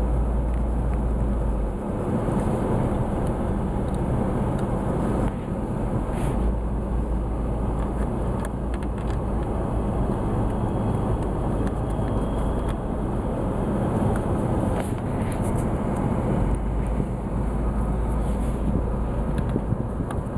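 A steady low vehicle rumble with scattered small clicks and knocks.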